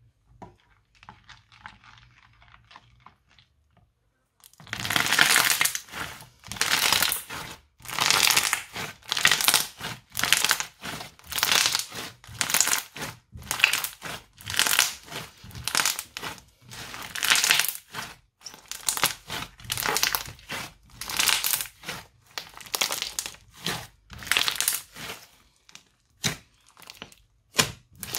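Crunchy slime with beads mixed in being squeezed and pressed by hand, crunching and crackling in loud bursts about once a second. The bursts start about four seconds in, after a few faint crackles.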